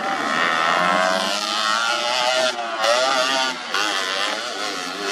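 Vespa scooter engines revving hard in a race, their pitch repeatedly rising and falling with the throttle, more than one engine overlapping, with two brief drops in the sound about two and a half and three and a half seconds in.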